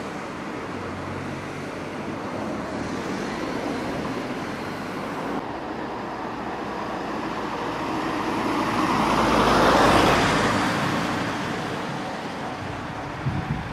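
Road traffic noise, with one vehicle passing close: it swells to a peak about ten seconds in, then fades.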